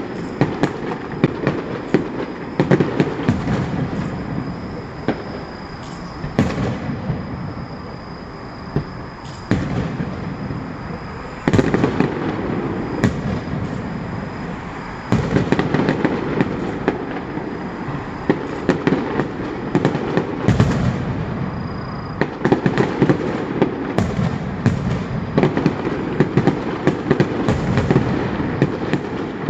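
Fireworks display: a dense, continuous barrage of bangs and crackles, with louder rounds of bursts setting in about 11 and 15 seconds in.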